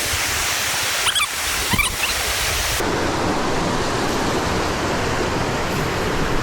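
Steady rush of fast creek water. About three seconds in it shifts abruptly to a fuller, deeper rush, with a few brief scrapes just before.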